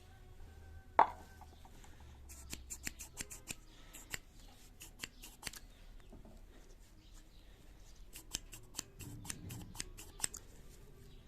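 A sharp knock with a brief ring about a second in, then irregular runs of light clicks and taps from small hand work on parts and tools.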